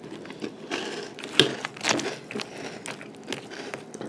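Metal spoon stirring and scooping through crunchy corn puff cereal in milk: an irregular run of small crunches and clicks, with a couple of sharper ones partway through.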